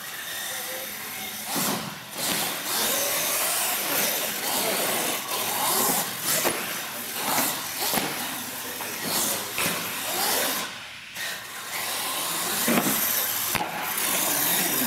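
An R/C monster truck's motor and drivetrain whining, rising and falling in pitch as the truck speeds up and slows on a concrete floor, with a few sharp knocks.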